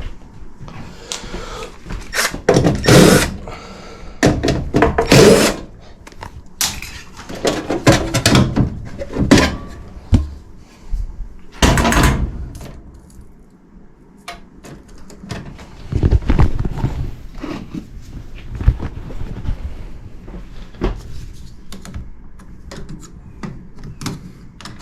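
Irregular thunks, scrapes and clicks of hand work while disconnecting an air handler's high-voltage wiring, with louder bursts of scraping every couple of seconds and small sharp clicks between them.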